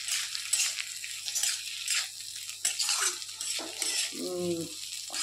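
A spatula stirring and scraping potato strips frying in a metal kadai, with a scrape about twice a second over a light sizzle.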